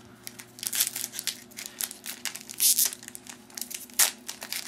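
Foil trading-card pack wrapper being torn open and crinkled by hand: irregular crackling rustles, with a sharp snap about four seconds in.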